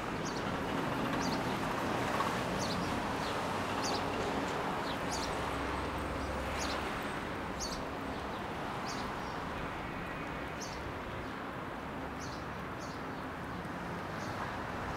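Street ambience: a steady wash of traffic noise with a small bird chirping over it, short high chirps about once or twice a second that thin out toward the end.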